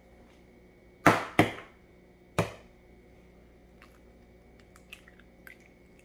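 A brown egg is rapped sharply three times against a hard edge to crack its shell, then a few faint crackles as the shell is pulled apart by hand about four to five seconds in.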